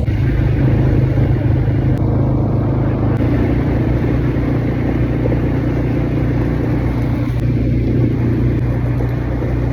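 Quad bike engine running steadily under way, a loud, even low drone.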